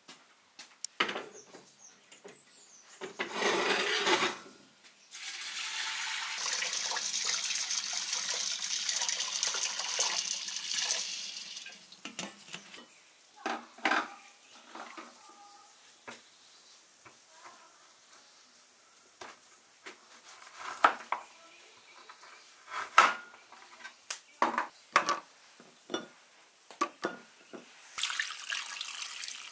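Stainless steel pot, its lid and a knife knocking and clinking on a wooden table, many short sharp strikes. A steady rushing noise lasts about six seconds in the first half, and near the end water is poured from a glass jug into the pot over dried meat.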